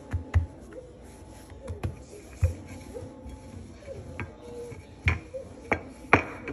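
Several irregular sharp knocks of a wooden rolling pin against a granite countertop while chapati dough is rolled out.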